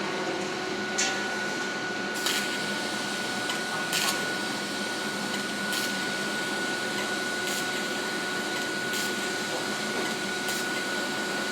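Argon-shielded (TIG) welding arc hissing steadily with a thin high whine, cut by short crackles about every one and a half seconds.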